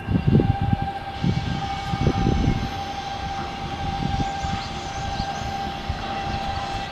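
Steady high-pitched machine whine over irregular low rumbling, typical of machinery running during shipyard outfitting work.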